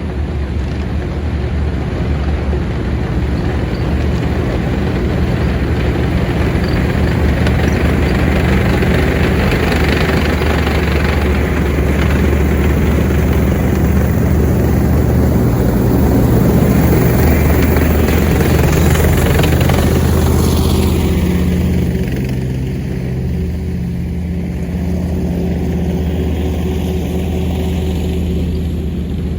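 Military tank driving past: a loud, steady engine with a heavy low hum, swelling to its loudest a little past the middle, then turning duller after about three-quarters of the way through as it moves off.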